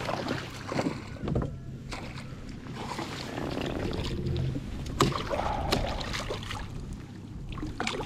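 Water and handling noises on a Hobie Outback fishing kayak, with a sharp knock about five seconds in.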